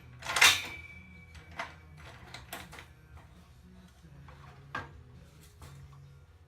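Steel square tubing being handled and set down: a loud metallic clang about half a second in that rings on briefly, then a few lighter knocks and clicks.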